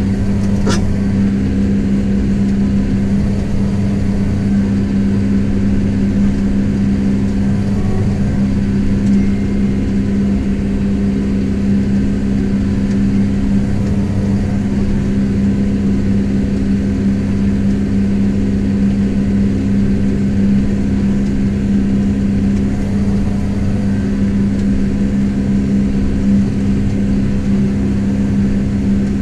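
Kubota M7172 tractor's four-cylinder turbo-diesel engine running steadily under load while pulling a plough, a constant drone heard from inside the cab. A single brief click sounds about a second in.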